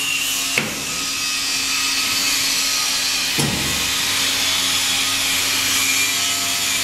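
Book-edge foil stamping machine running with a steady rushing noise over a low hum. Two brief knocks, about half a second and three and a half seconds in, from the foiled book block being handled.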